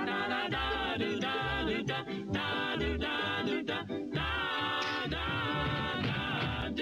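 Old cartoon soundtrack: a group of voices singing held chords in close harmony, the notes changing every half second or so, over low bass notes. The sound is dull, cut off above the middle treble as in an early-1940s film soundtrack.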